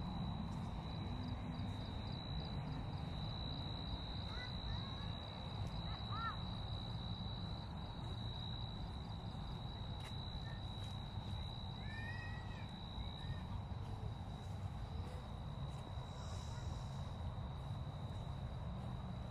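Night-time outdoor ambience: a steady high-pitched insect trill over a low rumble of background noise. A few short chirps come about five seconds in and again about twelve seconds in.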